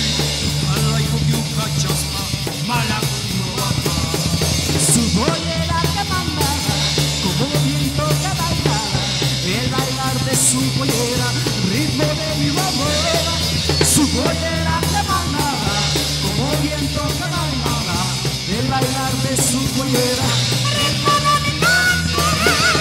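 Live rock band playing loudly: a singer's voice over electric guitar, bass and drum kit, with a few cymbal crashes. Near the end a high, wavering sustained note comes in.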